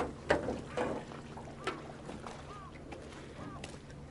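Several sharp knocks in the first two seconds over a faint steady low hum, followed by a few faint short chirps.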